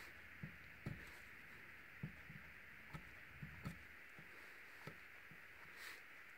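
Faint light taps and scratches of a marker pen drawing short strokes on the painting, over a steady background hiss, with a slightly longer scratch near the end.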